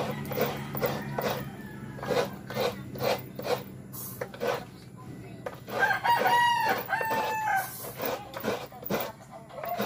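Coconut meat being scraped on a hand-held coconut grater blade over a metal basin, in short scraping strokes about twice a second. About six seconds in, a rooster crows.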